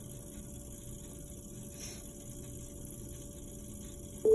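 Electric potter's wheel running with a faint steady hum as clay is shaped on it. Right at the end a loud steady pure tone starts suddenly.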